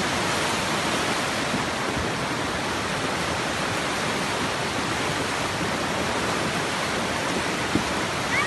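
The steady rush of a river in flood, its fast, muddy brown water churning over the whole width of the channel.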